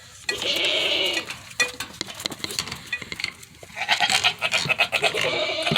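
Hungry goats bleating: one long, wavering call about a second in and another longer one near the end, with scattered light clicks and rattles between them.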